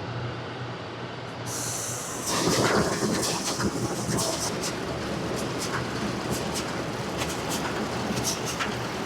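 A tractor engine runs steadily, and about two seconds in the New Holland BR7060 round baler is started at slow speed: its chains and drive run with a steady metallic clatter full of sharp ticks.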